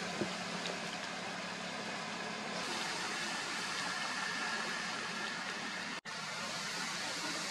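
Steady outdoor background noise, an even hiss, broken by a momentary dropout about six seconds in.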